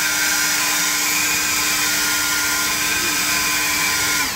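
Leaf blower running steadily at full speed, then winding down and cutting off near the end.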